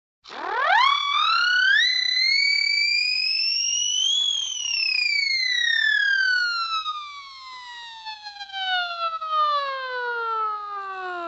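A siren winding up: its wail rises fast, then climbs in small steps to a peak about four seconds in, then winds slowly down in one long falling tone.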